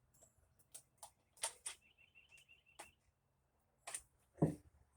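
Handling of a small taped-shut metal tin: scattered light clicks and rustles as the tape is picked at, with one louder knock about four and a half seconds in.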